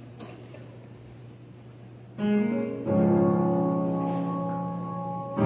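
Electronic keyboard coming in with chords about two seconds in, the second chord held and slowly fading, opening a worship song. Before it, only a low steady hum.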